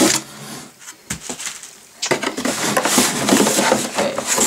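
Cardboard laptop box being handled: a soft knock about a second in, then loud cardboard scraping and rubbing with small knocks as the box is pulled open.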